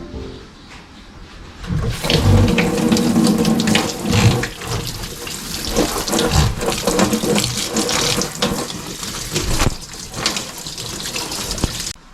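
Water running from a tap into a sink, with knocks and clatter of things being handled and rinsed under the stream. It starts about two seconds in and cuts off abruptly near the end.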